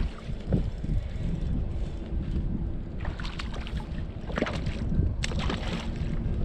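Wind buffeting the microphone over water slapping against a fishing boat's hull, with a low steady hum underneath and a few louder splashes in the second half.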